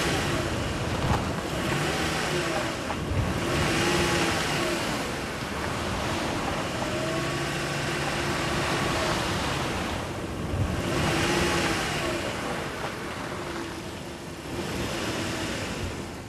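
Steady rushing of ocean surf and wind, swelling and easing every few seconds, with faint pitched tones underneath.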